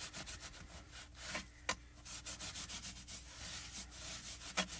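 Wet wipe rubbing across a plastic stencil in quick, repeated wiping strokes, cleaning glitter paste off it.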